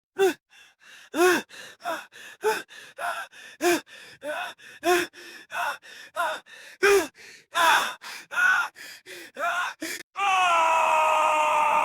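Man panting and gasping in fear, fast voiced breaths about two a second. About ten seconds in, a long drawn-out cry whose pitch slowly falls.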